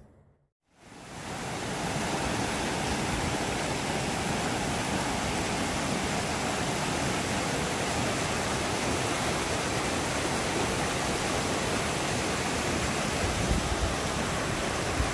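Mountain creek rushing over rocks: a steady, loud rush of water that fades in about a second in, after a brief silence.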